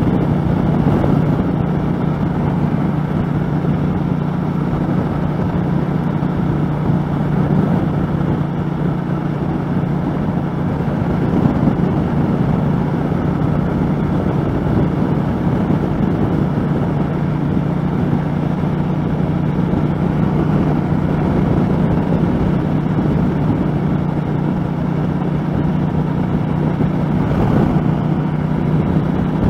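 2013 Triumph America cruiser's 865cc parallel-twin engine running steadily at cruising speed, mixed with wind rush over a helmet-mounted microphone.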